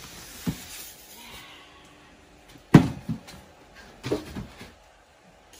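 Cardboard box and a sewing machine in polystyrene packing being handled and set down: a light knock about half a second in, a sharp thud a little under three seconds in with a smaller one just after, then a few more knocks around four seconds.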